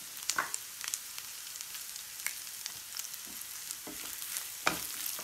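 Minced ginger and garlic with dried red chillies sizzling in hot oil in a non-stick frying pan, a steady hiss. A few short scrapes and clicks come from a silicone spatula stirring the pan.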